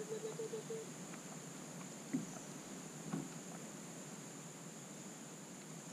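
Quiet riverside ambience: a faint steady high hiss, a low hum that stops within the first second, and two soft short sounds about two and three seconds in.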